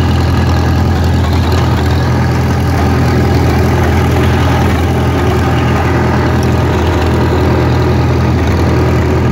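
International Harvester Super W6 tractor's four-cylinder engine running steadily at an even speed while driving, heard up close from the operator's seat.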